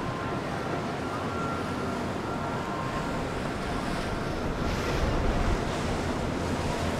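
Wind on the microphone and water wash as a large motor yacht goes by, with the low rumble of its engines growing louder about two-thirds of the way in.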